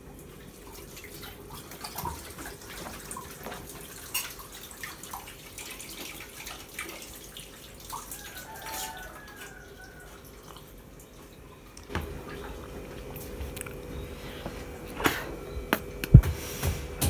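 Water dripping and splashing at a kitchen sink during hand-washing, with many small clinks of utensils; a few louder knocks of cookware near the end.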